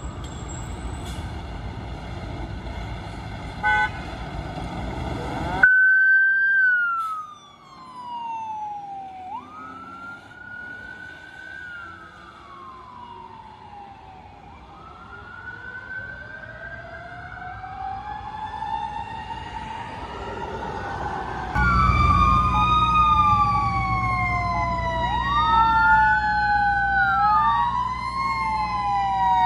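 Fire engine's diesel engine rumbling. Its siren then starts wailing in slow rising and falling sweeps and grows fainter as it goes away. Later two sirens wail at once, louder, over a heavy engine rumble.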